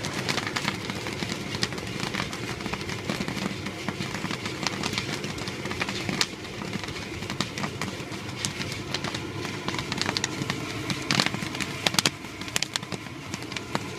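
Kettle corn popping in a hot kettle: scattered, irregular kernel pops over a steady hiss from the kettle's burner, the batch near its end.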